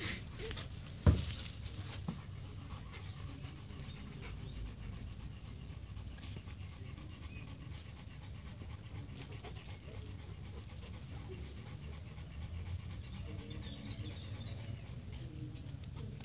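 A dog panting steadily, with one sharp thump about a second in.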